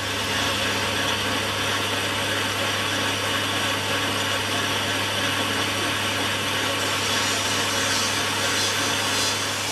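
Metal lathe running steadily, its motor and headstock giving a constant hum, while the cutting tool turns a metal nut with an even cutting hiss that grows brighter about seven seconds in.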